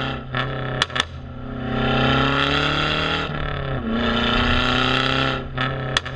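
Background rock music: sustained distorted electric-guitar chords, with sharp drum-like hits near the start and again near the end.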